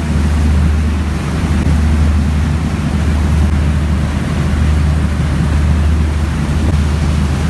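A ferry's engine running steadily under way: a deep, even drone, with a steady rushing hiss over it.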